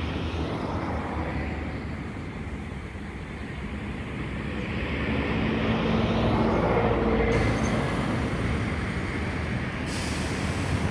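Airbus A321 airliner flying low overhead on approach, its jet engine rumble swelling to its loudest about six to seven seconds in, then easing off slightly.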